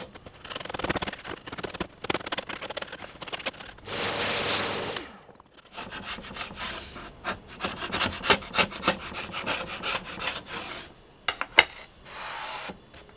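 Katz-Moses router plane shaving the bottom of a dado that was cut too shallow: a run of short scraping strokes, with a longer, denser scrape about four seconds in. A few sharp clicks near the end.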